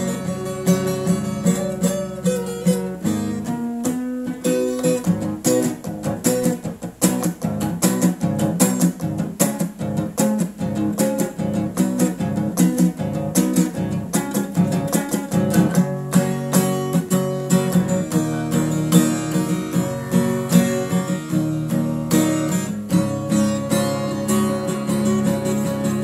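Acoustic guitar played solo: strummed chords and quickly picked notes, busiest in the middle stretch.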